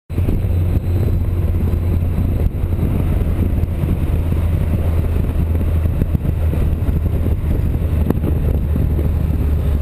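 Motorcycle riding at a steady low speed: the engine runs with a constant low hum under road noise.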